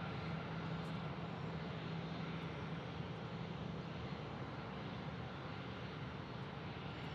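Steady jet airliner engine noise at the airport: an even rush with a low hum that eases a little after about three seconds.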